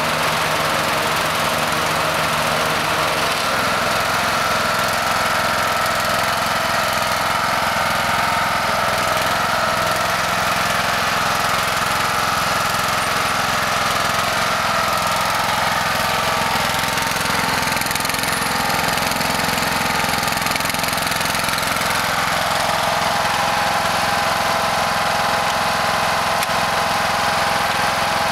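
Husqvarna riding lawn mower's engine running steadily as the mower is driven around.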